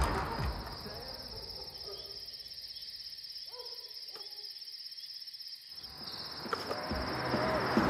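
Crickets chirping steadily in a continuous high trill, as night ambience. There is a faint brief sound and a click about four seconds in, and a rising swell near the end.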